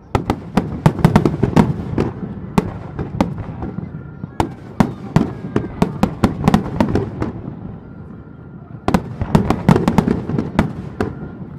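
Fireworks display: rapid volleys of shell bursts and sharp bangs, dense at first, thinning out in the middle with a short lull, then another dense salvo near the end.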